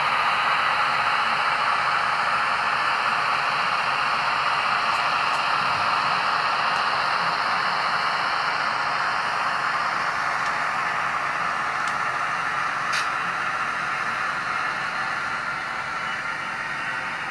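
Model diesel locomotive with a Tsunami sound decoder running on the track, its engine sound coming through the small onboard speaker as a steady, hissy noise that slowly grows quieter. A faint click about 13 seconds in.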